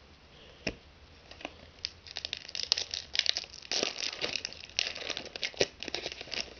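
Foil trading-card pack wrapper crinkling and tearing as it is ripped open by hand. A few light taps come first, then dense crackling from about two seconds in until just before the end.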